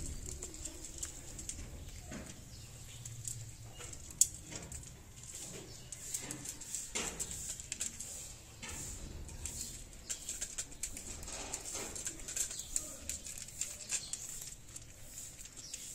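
Several cats chewing dry kibble from plates: irregular small crunches and clicks, with one sharper click about four seconds in.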